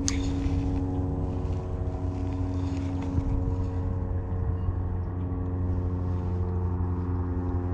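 An engine running steadily nearby: a constant low hum with even overtones that holds without change.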